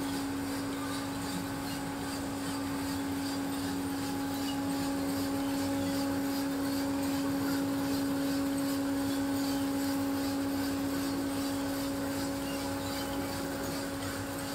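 Coffee roaster running with its exhaust fan drawing off the roasting air: a steady hum with one constant tone over an even rush of moving air.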